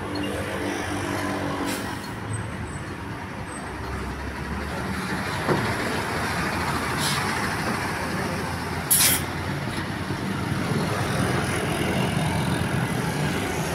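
Bus engine running amid road traffic noise, with a brief air-brake hiss about nine seconds in.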